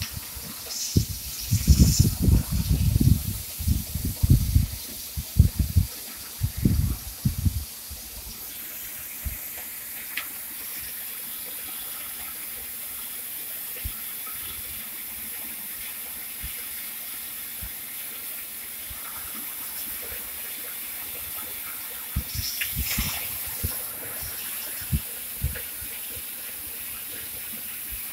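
Steady high hiss from a CNC profile cutting machine's torch, with a run of low thumps and knocks through the first several seconds and a few light knocks later on.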